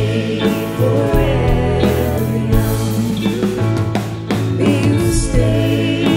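A mixed group of voices singing a pop ballad together with vibrato, over keyboard and electric guitar accompaniment with a sustained bass.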